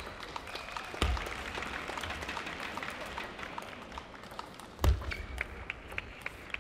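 Table tennis ball clicking off the bats and the table in a rally, the clicks coming quicker after a heavy thud about five seconds in, with low arena crowd noise earlier on.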